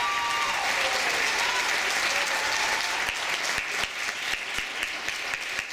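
Audience applauding; the last notes of the music cut off about half a second in, and the clapping thins into scattered separate claps after about three seconds.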